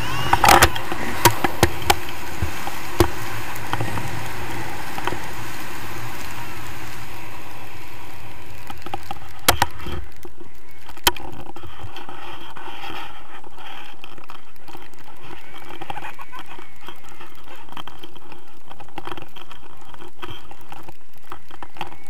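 Wind rushing steadily over an action camera's microphone in tandem paraglider flight. A few sharp knocks sound in the first three seconds and again around ten seconds in.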